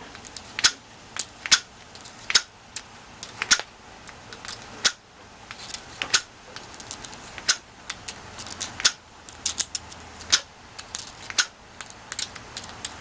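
Lock pick raking the pins of a Sargent padlock under tension: irregular sharp metallic clicks, about one a second, as pins set and slip without the shackle opening yet.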